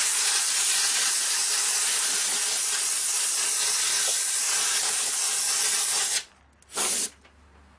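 Compressed-air line blowing through a bottle cooler's condenser fins to clear trapped dust: a long, steady hiss that cuts off sharply about six seconds in, then one short blast about a second later.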